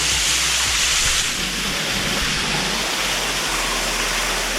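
Small waterfall in a cave, falling water making a steady rushing hiss.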